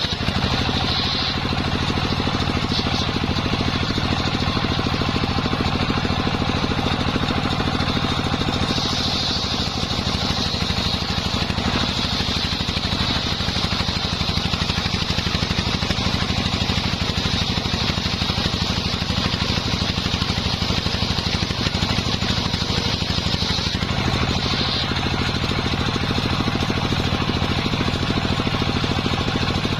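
Engine-driven circular sawmill running: a steady engine drone under a high saw whine that grows stronger for long stretches as the blade cuts wadang timber into beams.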